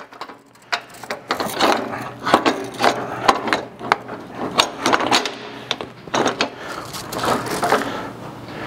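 Gathering chain with brush blocks and crop lugs being worked onto a John Deere corn-head row unit: irregular clattering of chain links, with many sharp clicks and knocks as the blocks hit the frame and the links drop over the sprockets.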